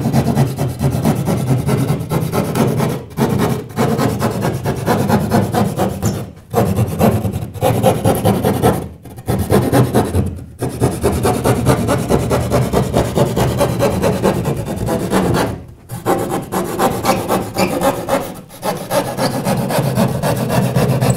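Keyhole saw cutting through a sheetrock ceiling in rapid back-and-forth strokes, the blade rasping through the gypsum, with a few brief pauses.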